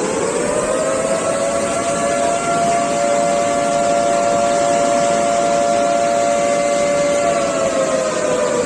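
Motor-driven warning siren, the alert sounded before dam floodgates are opened: it finishes winding up in the first second, holds a steady two-tone wail for about six seconds, then starts to wind down near the end.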